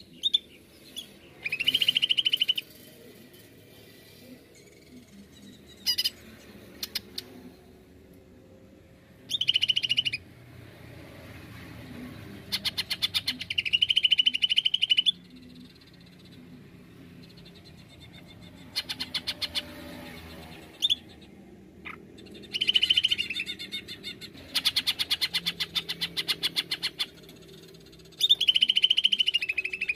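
Male greater green leafbird (cucak ijo) singing in loud bursts of very fast, rattling trills and whistled notes, with single sharp calls in between and pauses of a few seconds between phrases.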